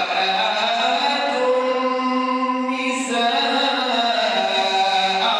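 A man's voice reciting the Quran in the melodic tajweed style, drawing out long held notes and shifting pitch partway through.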